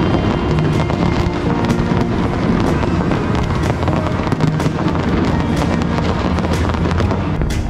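Fireworks going off in an irregular string of sharp bangs and crackles, mixed with loud music.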